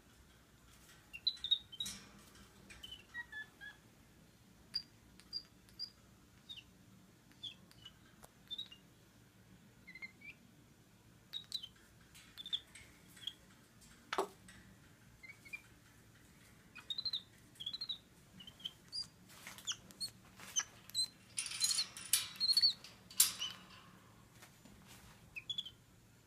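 Baby capuchin monkey, 11 weeks old, making many short, high chirping calls, unhappy at being in his cage. Sharp clicks come in among the calls, and about three-quarters of the way through the calls grow louder and harsher for a couple of seconds.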